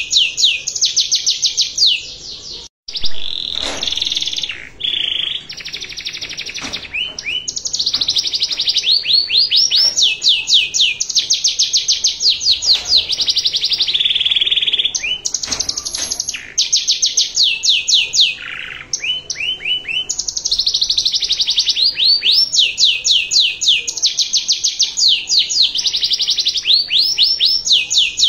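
Domestic canary singing a long, continuous song of rapid trills: runs of quick repeated notes, varied with short held whistled tones and broken by a brief pause about three seconds in.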